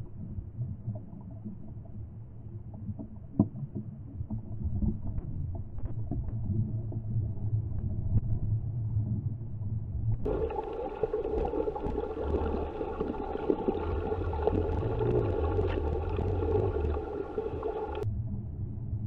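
Muffled underwater rumble and throbbing, picked up by a camera in a waterproof housing while snorkeling. About halfway through, a steady whine with many overtones starts abruptly and stops just as suddenly near the end.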